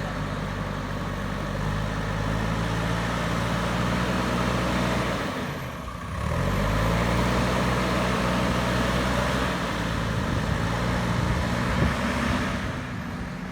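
JCB backhoe loader's diesel engine running and working, its note steady. About halfway through the revs drop briefly, then rise again.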